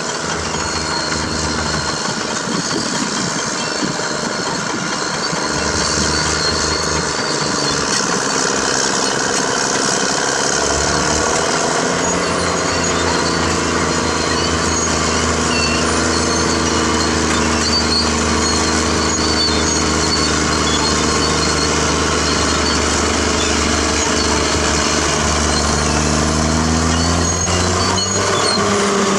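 Caterpillar D6R bulldozer's diesel engine running steadily, its pitch rising about a third of the way in and again near the end as the engine is throttled up.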